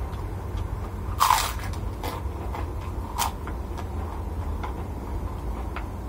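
Crunching bites into a crisp white cracker (kerupuk): one loud crunch about a second in, then two smaller crunches and faint crackles of chewing.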